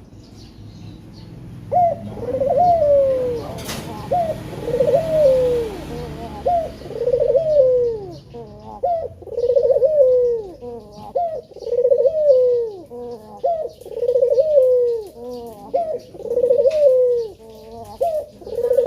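Male puter (domestic ringneck dove) cooing: a steady run of repeated coos, each sliding down in pitch, about one a second, starting about two seconds in.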